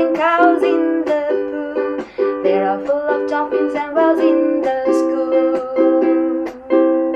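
Ukulele strummed in a steady rhythm, its chords ringing.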